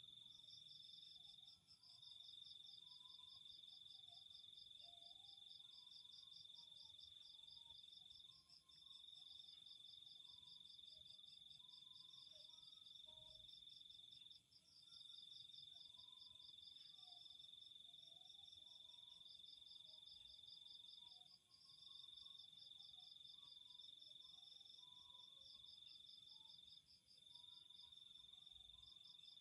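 Faint chorus of insects trilling: one steady high trill that stops briefly about every six or seven seconds, over a quicker pulsing trill a little higher.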